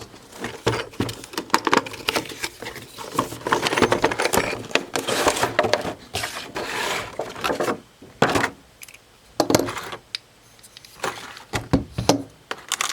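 A new keyed door lever lockset being unboxed: cardboard box and packaging handled and rustling, with metal lock parts clicking and clinking, and a few sharper knocks near the end.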